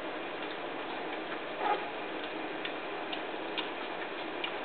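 Three-week-old puppies eating soft puppy food from a steel saucer dish: steady wet lapping and smacking with scattered small clicks, and one brief louder sound about a second and a half in.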